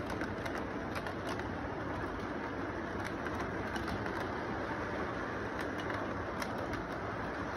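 Electric model train running steadily along its track: a continuous rumble and rolling hum of the freight cars' wheels, with scattered light clicks.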